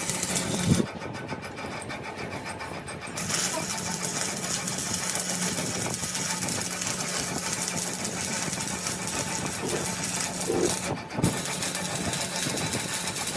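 An engine or motor running steadily, with a sharp knock about a second in and another near the end.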